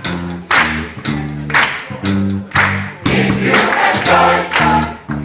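Choir singing over a live band, with drums and bass keeping a steady beat of about two strikes a second.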